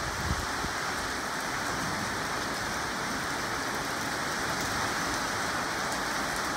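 Heavy storm rain falling steadily, an even hiss of rain on surfaces.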